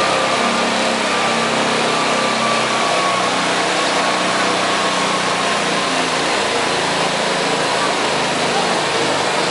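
Small riding lawn mower engine running hard under load, its pitch sagging slowly, over a steady wash of outdoor noise.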